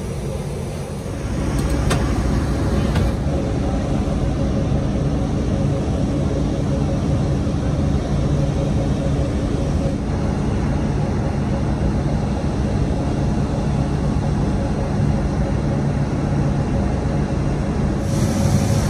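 Steady airport apron noise: a low mechanical rumble with a steady hum, getting louder about a second in and then holding level.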